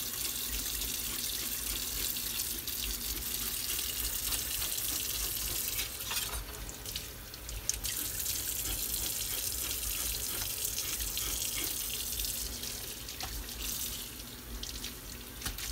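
Kitchen sink faucet running steadily, its stream splashing over a whole striped bass as it is rinsed, with a few short knocks and scrapes as the fish is handled.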